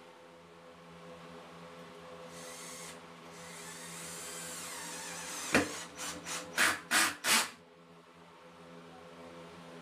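Cordless drill driving the threaded rod of a homemade plywood router lift, run in about five short trigger bursts in quick succession. Before that comes a longer spell of quieter turning as the rod is wound by hand, and a sharp click just before the bursts.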